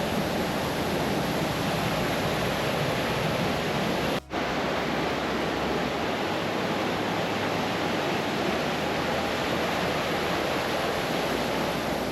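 Steady rush of a river running over a series of small waterfalls, with a momentary break about four seconds in.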